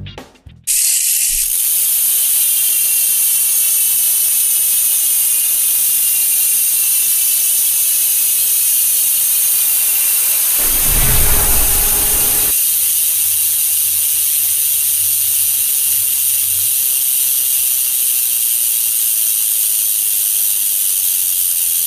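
Road bike's rear wheel spinning freely, its freehub ratchet buzzing as a steady high whirr that slowly falls in pitch. A low rumble comes in for about two seconds near the middle.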